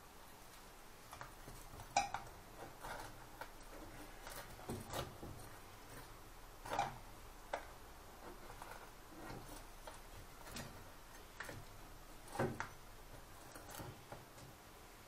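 Steel knife and fork clinking and scraping against a frying pan and a ceramic plate while a roast goose is lifted out and cut: scattered light taps, a few louder knocks among them.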